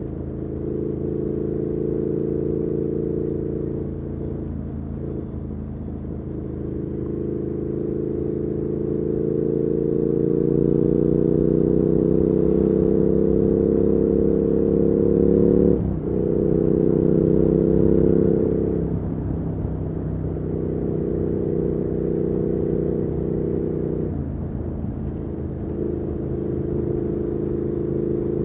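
2019 Triumph Speed Twin's 1200 cc parallel-twin engine through a Weslake Shorty Pro exhaust, under way on the road. The revs climb steadily from about six seconds in, break sharply at about sixteen seconds as it shifts gear, then drop about three seconds later as the throttle eases back to a steadier pace.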